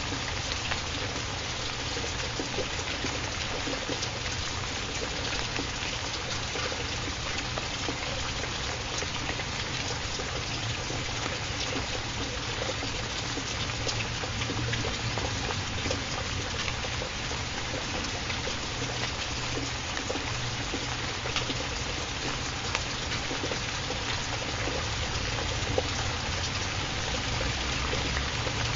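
Steady rain: an even hiss of falling water dotted with faint ticks of single drops.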